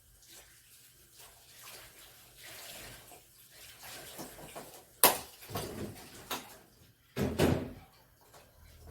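Handling noises: soft scraping and rustling, a sharp knock about five seconds in, and a louder clatter a couple of seconds later.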